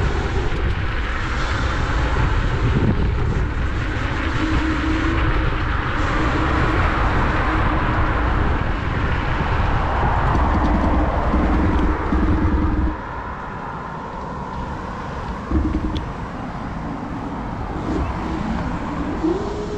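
Wind buffeting an action camera's microphone while riding a Dualtron electric scooter, with a steady rumble and short stretches of a faint whine from the motor. The rumble drops off sharply about two-thirds of the way through, and a rising whine comes in near the end.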